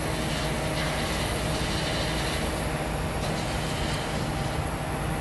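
A steady low rumble with a faint hum, with no change in level.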